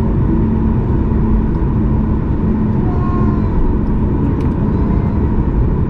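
Boeing 737 MAX 8's CFM LEAP-1B turbofan engines at takeoff power heard from inside the passenger cabin: a loud, steady rumble with a steady hum running through it, typical of the takeoff roll.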